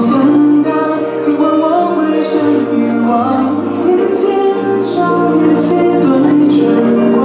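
Background music: a song with sustained melodic notes over a slow bass line.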